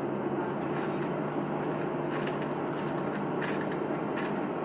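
Steady cabin hum of a Boeing 737 on the ground with its engines idling, heard from a window seat. A few brief scratchy rustles come and go over it.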